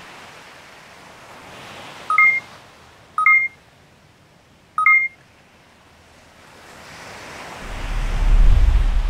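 Sound-design effects for an animated map zoom: a soft airy whooshing bed with three short two-tone electronic beeps, about 2, 3 and 5 seconds in. Near the end a whoosh swells up with a deep low rumble underneath.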